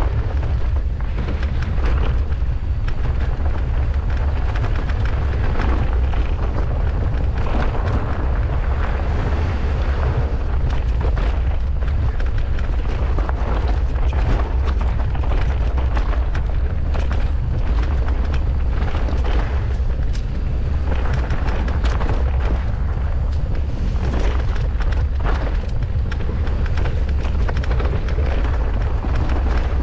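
Wind buffeting the microphone of a mountain bike descending a rough trail, with a steady low rumble and frequent short knocks and rattles from the tyres and bike over the ground.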